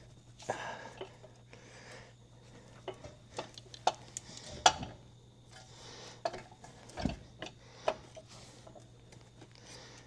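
Irregular metallic clinks and knocks of hand tools and steel suspension parts being worked during front spring and wishbone assembly. The sharpest clink comes near the middle, and a heavier knock follows a couple of seconds later.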